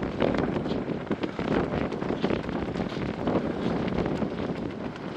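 Wind buffeting the camera's microphone in uneven gusts, a low rumbling rush.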